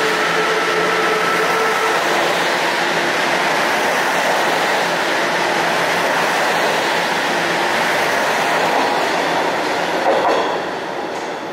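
Subway train pulling out along the platform: a steady loud rush of steel wheels on rail with a motor whine in the first couple of seconds. The noise swells briefly as the last car clears, about ten seconds in, then fades.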